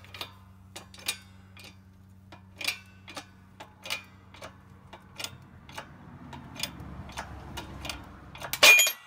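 Hand-operated hydraulic shop press under load on a connecting rod's wrist-pin bushing: sharp metallic clicks about every half second, with a low strain building from about six seconds in, over a steady low hum. Near the end the load lets go with one loud, sharp crack: the bushing press attempt has failed.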